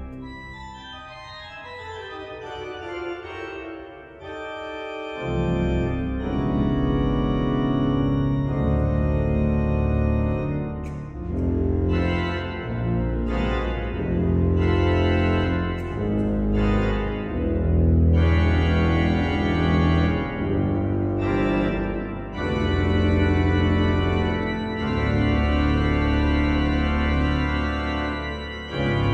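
Pipe organ playing a prelude. It opens with a quiet passage of thin high notes in a falling line, then about five seconds in full, loud chords with deep bass pedal notes come in and carry on, changing chord every second or two.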